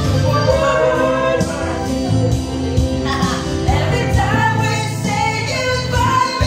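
Music with a singing voice over a steady bass line, playing without a break.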